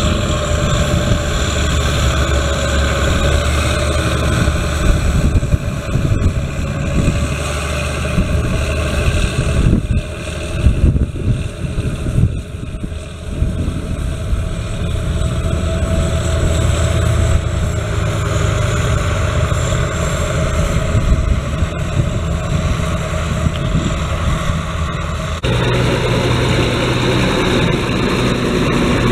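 Schlüter Profi Trac 3500 TVL's turbocharged, intercooled 320 hp MAN diesel engine running steadily under load while pulling a disc harrow through the soil. The tone changes abruptly near the end.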